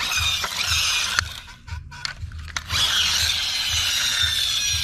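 Friction-powered toy truck's flywheel motor whirring with a gritty, ratchety gear noise as it is rubbed back and forth to wind it up, then, about three seconds in, a whine that falls slowly in pitch as the freed flywheel and wheels spin down.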